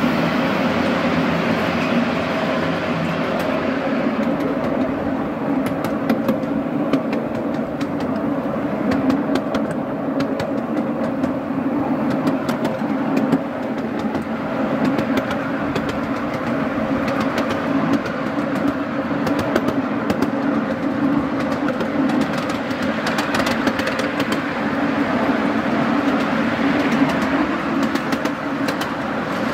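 A 7¼-inch gauge miniature railway train, hauled by a Black Five model locomotive, running along the track as heard from a riding car: a steady rumble of steel wheels on rail with frequent short clicks.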